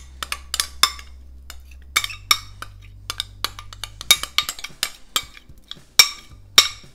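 A utensil scraping and knocking ricotta out of a plastic tub into a glass bowl: a quick, irregular run of sharp clicks and clinks, some of them ringing, the loudest about six seconds in.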